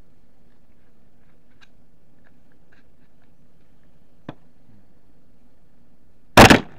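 Homemade gunpowder-loaded multi-barrel pistol firing: one loud, sharp blast about six seconds in, after a couple of faint clicks.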